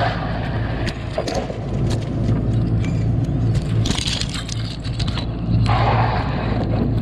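Wet shrimp tipped into a plastic basket with crackling, splattering rattles, about three times, over the steady low hum of a running boat motor.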